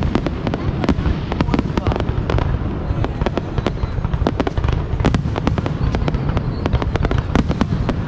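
Fireworks display going off: a rapid, irregular string of sharp bangs and cracks, several a second, over a continuous low rumble of launches and bursts.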